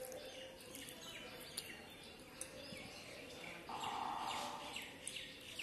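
Fingers squishing rice and curry gravy on a steel plate, with faint clicks, while birds chirp in the background with short falling calls. A louder rush of noise comes about four seconds in, as a handful of food is lifted to the mouth.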